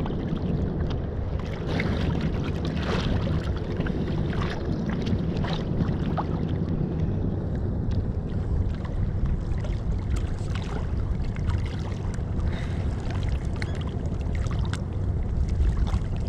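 Small fishing boat under way on choppy sea: a steady engine drone with the hull splashing through the waves.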